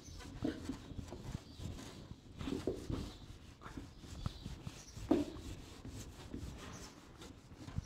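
Board duster wiping marker writing off a whiteboard: faint, uneven rubbing strokes.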